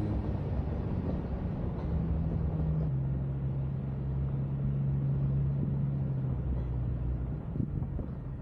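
Jeep Cherokee XJ running under way, a steady low engine drone that drops in pitch about three seconds in, with a few short knocks near the end.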